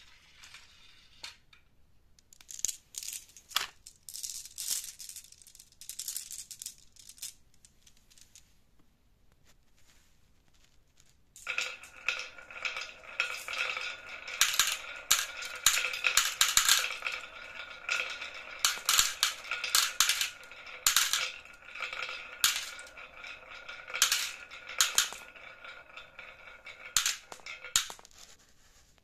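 Glass marbles rolling down the zigzag grooves of a wooden Haba slope and clicking as they drop into the bed of a toy dump truck. At first there are scattered clicks. About halfway in, many marbles roll at once, and this turns into a dense, continuous rattle full of clicks and light ringing that dies away near the end.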